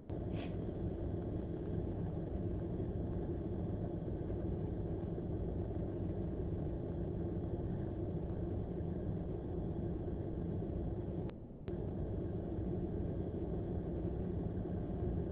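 Car engine idling, heard from inside the cabin as a steady low rumble that cuts out briefly about eleven seconds in.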